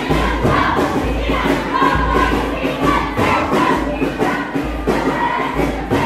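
A cheering squad chanting and singing in unison over loud recorded music with a heavy bass beat about once a second.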